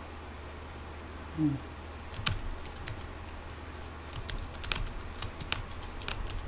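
Typing on a computer keyboard: irregular key clicks starting about two seconds in, over a steady low hum. A short low pitched sound comes about a second and a half in.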